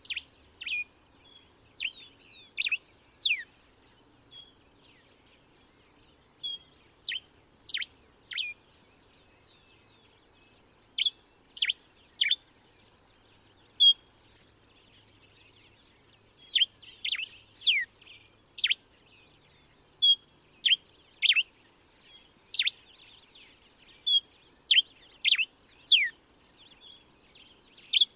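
Diuca finch (Diuca diuca) singing: bright, short notes, many sweeping sharply down in pitch, given in quick groups of two to four with short pauses between. A thin, high, steady buzz sounds behind it twice, for about two seconds each, near the middle and about three-quarters through.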